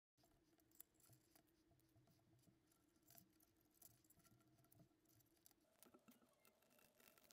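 Very faint clicks and ticks of small 3D-printed plastic robot-arm parts and screws being handled and fitted together by hand, over a faint steady hum.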